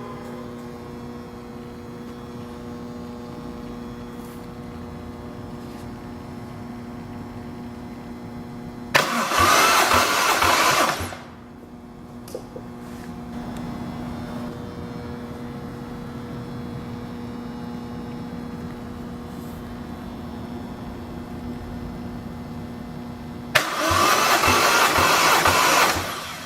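Toyota 1JZ twin-turbo straight-six cranked on its starter motor without firing, twice for about two seconds each, with even pulses from the cylinders coming up on compression: a compression test. A steady hum runs underneath.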